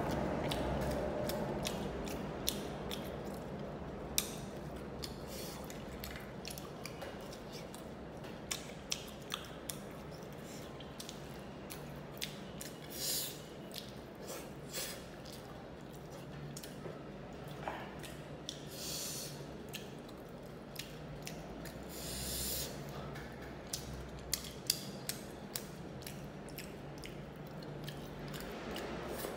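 Close-miked eating of fried fish by hand: mouth clicks, lip smacks and chewing in many short sharp ticks, with a few short breathy hisses.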